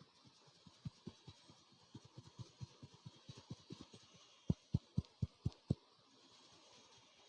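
A barber's hands patting and tapping in quick rhythm during a head massage: soft, fast thuds, then about halfway through six harder pats at about four a second.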